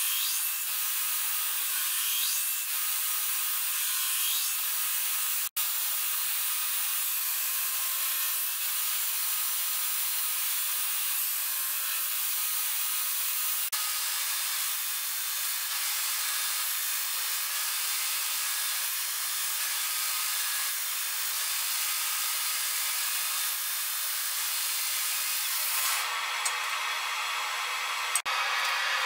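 Belt grinder grinding a steel knife blade held in a bevel jig against the running abrasive belt: a steady, even hiss, with two brief breaks.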